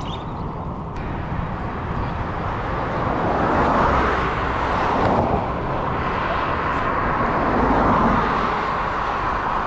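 Road traffic on a highway, vehicles passing close by, the noise swelling as they go past about four and again about eight seconds in.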